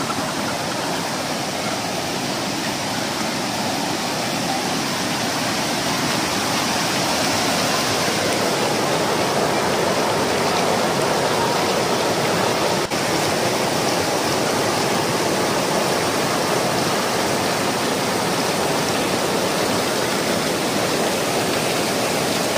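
Waterfall pouring into its pool: a loud, steady rush of falling water that grows a little louder after the first several seconds.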